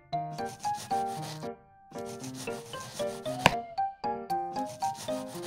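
A small knife sawing back and forth through soft layered sponge cake with cream filling, a rubbing, scraping sound, with a sharp tap about three and a half seconds in. Background music with a light melody plays throughout.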